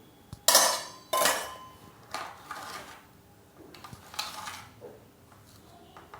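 Metal kitchen utensils clanking: two loud ringing clanks close together, then a few softer clinks. These sound like steel bowls or spoons being knocked or set down.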